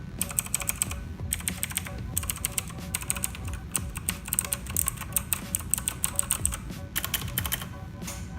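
Typing on an Eagle Tec KG011 mechanical keyboard with clicky MX Blue-equivalent switches: a fast, dense run of key clicks, broken by a few short pauses.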